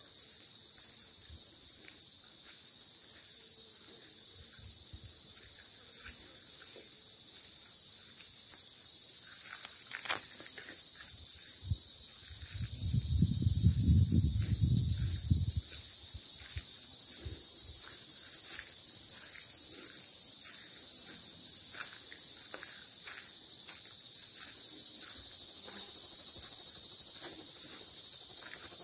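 A chorus of cicadas gives a steady, dense high-pitched buzz that grows louder near the end. A brief low rumble is heard about halfway through.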